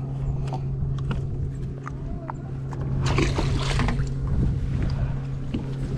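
A steady low hum aboard a bass boat over rumbling wind and water noise, with a few light knocks and a short burst of rushing noise about three seconds in.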